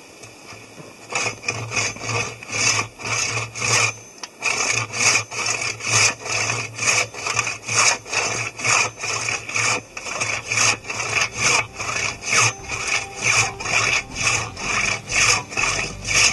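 Silky pruning saw cutting through a log with rhythmic rasping back-and-forth strokes, about two to two and a half a second. The sawing starts about a second in and pauses briefly near four seconds before carrying on.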